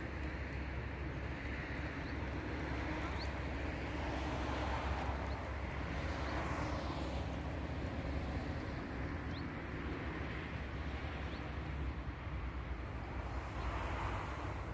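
Steady lakeside outdoor ambience: a constant low rumble and hiss, with a few faint short chirps scattered through it.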